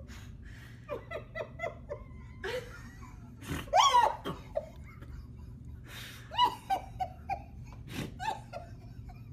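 A person laughing hard in repeated bursts: quick ha-ha pulses about a second in, the loudest, shrieking peak of laughter near four seconds, and further bursts later on.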